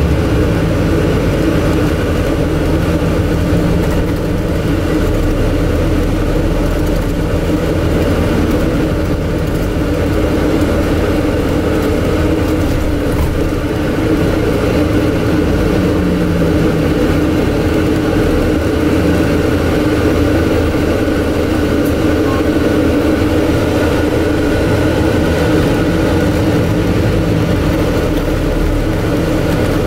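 Steady cabin noise on the upper deck of a Scania N250UD Enviro 400 MMC double-decker bus under way: the air-conditioning unit's drone largely covers the quiet engine.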